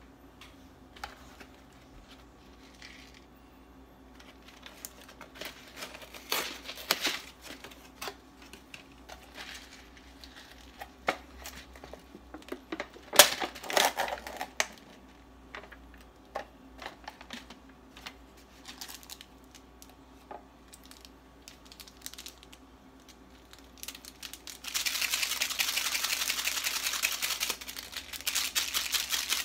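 Instant ramen cup and its plastic and paper packaging being handled: scattered clicks and rustles, then a few seconds of continuous crinkling near the end.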